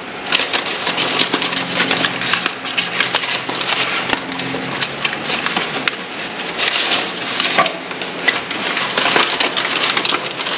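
The packaging of a set of new brake pads, a cardboard box and its wrapping, being rummaged through as a pad is taken out: a dense run of small crackles and clicks. A faint low steady hum runs underneath.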